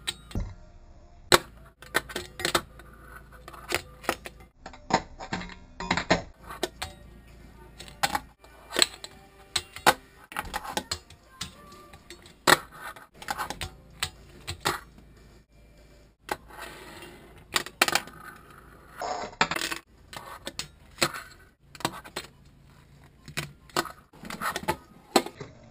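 Fingerboard tricks: irregular sharp clacks of the small deck and its wheels popping off and landing on a hard tabletop and a metal rail, with a couple of short scraping grinds.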